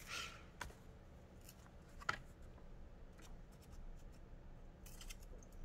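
Scissors cutting paper: a few faint, separate snips, the sharpest about two seconds in.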